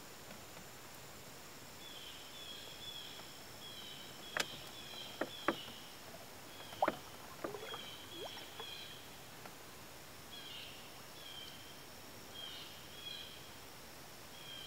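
Water dripping off a canoe paddle into calm lake water: a handful of sharp plinks and small plops about four to eight seconds in. A small bird chirps over and over in the background.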